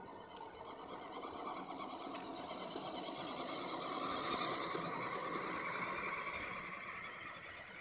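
Two 1/10-scale electric RC trucks driving over wet gravel: electric motors whining and tyres crunching on stones. The sound swells as they pass close by about four seconds in, then fades.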